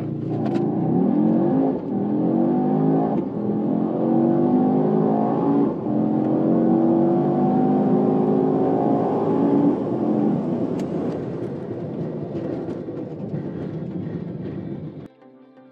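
High-performance car engine accelerating hard through the gears: the revs climb in each gear and drop at gear changes about 2, 3 and 6 seconds in, then hold one long pull to about 10 seconds before easing off at a lower level. The sound cuts off abruptly about a second before the end.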